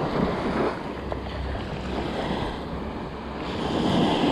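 Small waves washing onto a sandy beach with wind buffeting the microphone; a wave swells up and breaks near the end.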